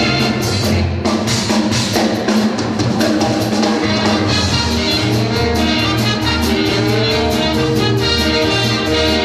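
Lively brass band music with trumpets over a drum kit keeping a steady beat.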